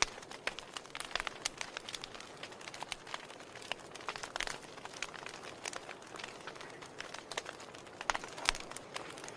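Fire in a fireplace crackling over a soft steady hiss, with many irregular sharp pops; one louder pop comes near the end.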